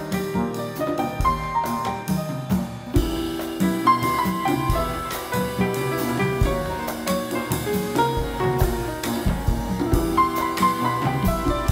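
Live instrumental band music with piano, accordion, guitar, drum kit, congas and tuba: held melody notes over a low bass line and a steady drum beat.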